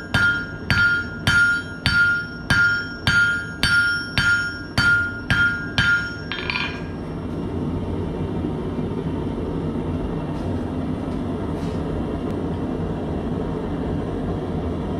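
Hand hammer striking hot steel on an anvil, about a dozen ringing blows at roughly two a second, drawing out the stem of a forged leaf. The blows stop about six and a half seconds in, leaving the forge running with a steady roar.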